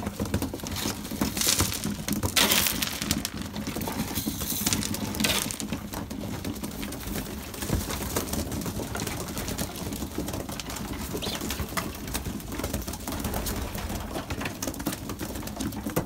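Young racing pigeons crowding and scrambling in a wooden feeding tray: flurries of wing flaps over a dense patter of small clicks and scuffles, with some cooing. The loudest flurries of wingbeats come in the first six seconds.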